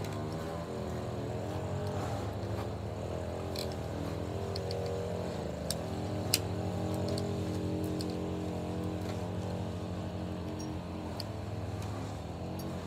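An engine running steadily, its pitch drifting slowly up and down, with scattered small clicks and one sharp click about six seconds in.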